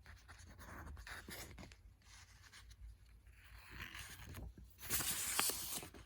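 Paper leaflets being handled and unfolded, rustling and scraping, with a louder crinkle about five seconds in.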